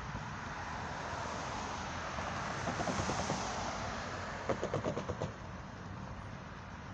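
A car drives across a railroad grade crossing, its tyre noise swelling and fading, with a quick series of knocks about two-thirds of the way through as the tyres go over the rails.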